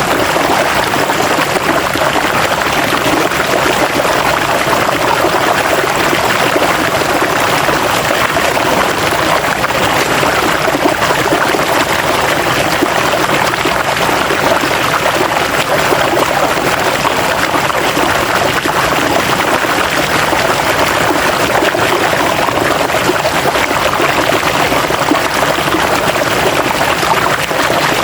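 River water flowing over rocks in a steady, even rush with no breaks.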